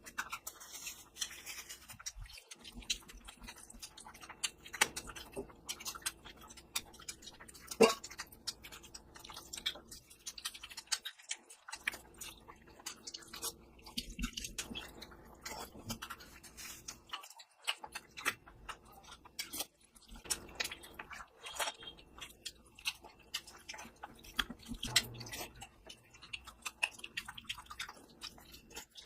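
Close-miked chewing of mutton curry with rice: a dense, irregular run of wet mouth clicks and smacks, with one sharper click about eight seconds in.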